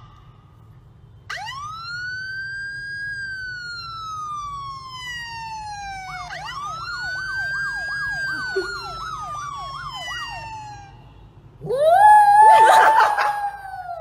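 Siren sound played from a phone: a long wail that rises and then slowly falls, then a second wail with a fast warble of about three cycles a second. About twelve seconds in, a small white poodle howls along, rough and louder than the siren.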